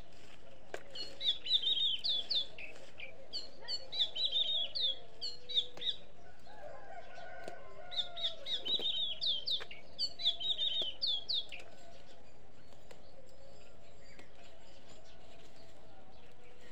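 A songbird singing in short phrases of quick, high chirping notes, four phrases in all, falling silent about two-thirds of the way through. A lower, drawn-out call rises and falls in the middle.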